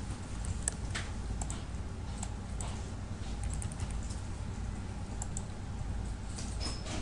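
Computer keyboard typing: scattered keystrokes with a quick run of keys about three and a half seconds in, over a steady low hum.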